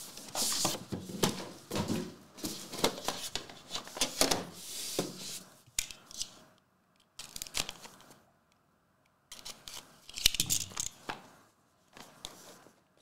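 Sealed trading-card box being cut and torn open with a box cutter: a run of short tearing and scraping strokes, a pause of about three seconds in the middle, then a few more, and the cardboard inner box slid out.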